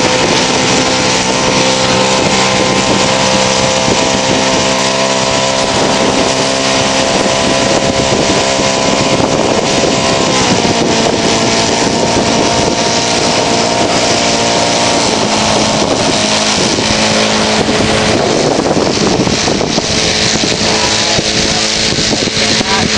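Model-aircraft engine of a radio-controlled flying lawnmower running steadily. Its pitch drops a little about ten seconds in and wavers near the end.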